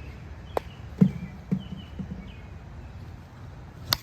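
Footsteps thudding on the ground, three heavy steps about half a second apart, with a sharp click near the start and another near the end, over steady outdoor wind noise.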